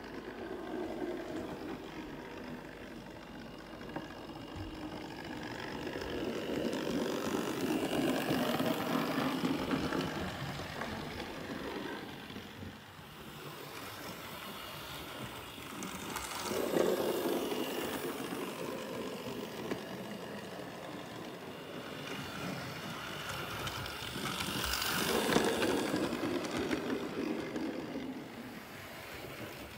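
Hornby Dublo 00 gauge model train running on the layout: the locomotive's motor and wheels rumbling and clattering on the track, swelling louder and fading away several times as the train passes near and then draws off.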